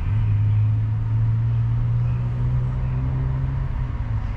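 A low, steady engine-like rumble that fades out near the end.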